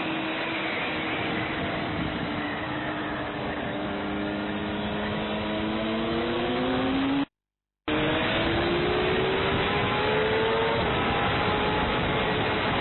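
Racing motorcycle engine heard onboard at speed, its note climbing steadily under acceleration over a constant rushing noise, easing slightly near the end. The sound cuts out completely for about half a second around seven seconds in.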